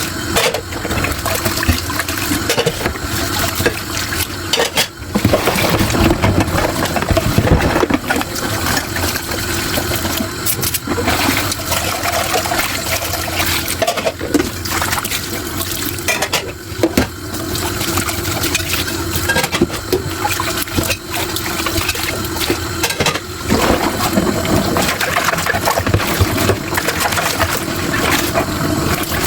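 Tap water running and splashing into a kitchen sink as dishes are washed, with occasional sharp knocks of dishes.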